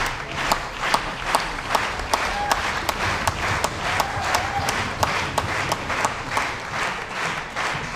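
Theatre audience applauding at the curtain call, the clapping fallen into a steady rhythm in unison, about two and a half claps a second, over a wash of general clapping.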